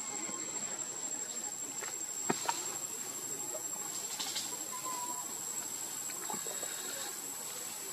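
Steady high-pitched insect drone of a cricket or cicada kind, one unbroken tone, with a few faint clicks and rustles, the sharpest about two seconds in.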